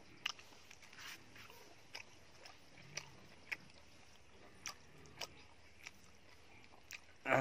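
A person chewing food, with a scattered run of short mouth clicks and lip smacks about once or twice a second, and one louder sound that falls in pitch near the end.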